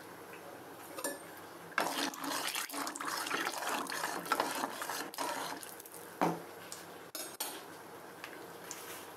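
Metal spatula scraping and clattering against a kadai while turning eggs frying in oil, for a few seconds from about two seconds in, then a sharp knock and a few lighter clicks. A faint hiss of the hot oil runs underneath.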